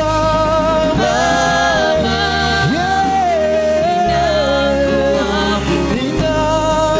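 Live gospel worship song: several singers on microphones sing a held, gliding melody over sustained keyboard accompaniment.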